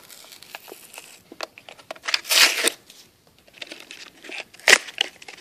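Hot Wheels blister pack being torn open by hand: crinkling plastic and tearing card, with a loud tear about two seconds in and a sharp crackle near the end.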